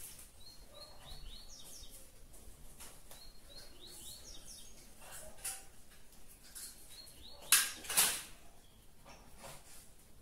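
Small birds chirp repeatedly in quick, high, downward-sweeping notes. Late on there are two sharp knocks about half a second apart, louder than the chirping.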